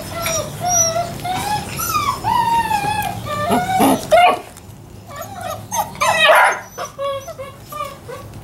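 Yellow Labrador retriever puppies whining and yipping at play: a string of short, high gliding whines, with louder, sharper yelps about halfway through and again about six seconds in.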